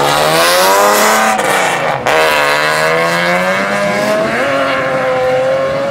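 Drift car engine revving hard through a slide, with tyre noise from the sliding tyres. The revs climb, drop sharply about two seconds in, then climb again and hold steady near the end.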